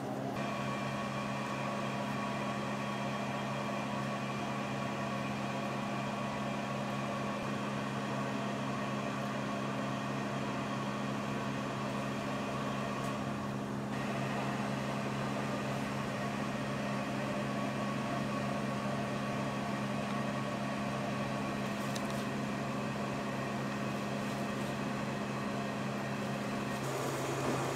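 Steady mechanical hum made of several unchanging tones, with a slight shift about halfway through and one low tone stopping near the end.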